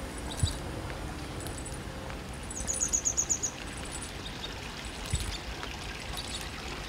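Outdoor ambience: a steady rushing hiss with short high chirps scattered through it. Near the middle comes a rapid trill of about seven high notes, which is the loudest thing here.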